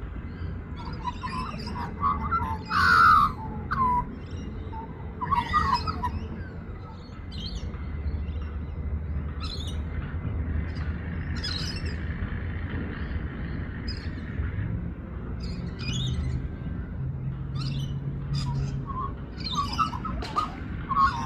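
A young Australian magpie singing: bursts of warbling, varied notes, the loudest a few seconds in and another near the end, with softer scattered notes between. A steady low rumble runs underneath.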